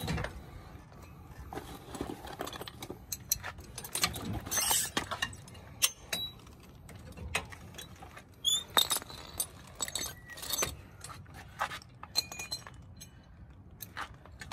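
Irregular metal clinks and clanks of tow-bar safety chains and hooks jangling as a tow bar is handled and coupled to a car's front base plate. Several of the hits ring briefly.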